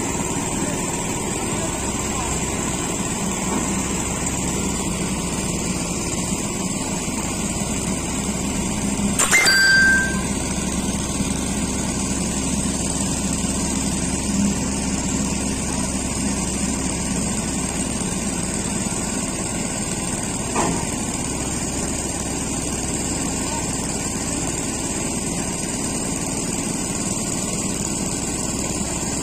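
Iseki HC 80P tracked combine harvester's engine running steadily as the machine is manoeuvred, with a short loud burst of noise about nine seconds in and a couple of light knocks later.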